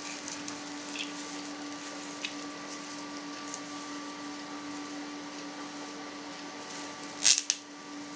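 A steady electrical hum with a constant tone, under faint ticks and rustles from hands tying twine around a collagen sausage casing. One short, loud rustle or knock comes about seven seconds in.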